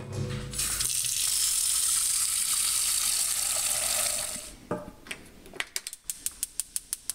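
Tap water running into a stainless steel saucepan in the sink for about four seconds, then a knock. Near the end, a gas stove burner's igniter clicks rapidly, about five clicks a second, as the burner is being lit.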